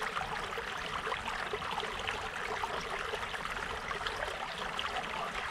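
A small stream babbling steadily.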